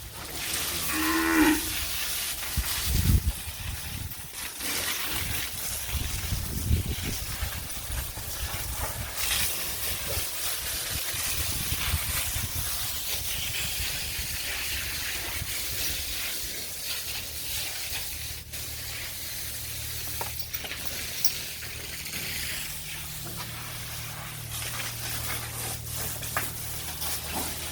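Dairy cattle in a shed mooing, with one short call about a second in, among farmyard knocks and rustling. A low steady hum joins in the second half.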